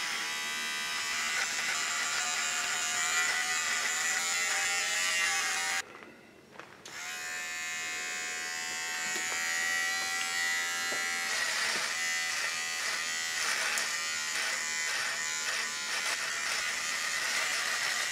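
Electric beard trimmer buzzing steadily as it cuts through a full beard. The buzz drops out for about a second near the middle, then starts again, and in the second half it pulses quickly as the blade is stroked through the hair.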